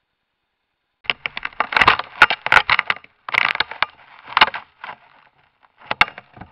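A fisher attacking a trail camera right at its microphone: a rapid, loud run of scrapes and knocks starting about a second in and lasting about four seconds, then a shorter burst near the end.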